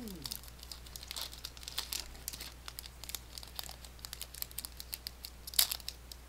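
A Pokémon card booster pack's foil wrapper crinkling and crackling as it is torn open by hand, with one louder crackle about five and a half seconds in.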